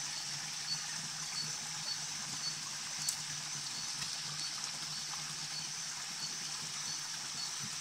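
Steady rushing of running water, with a faint high chirp repeating about twice a second and a few small clicks.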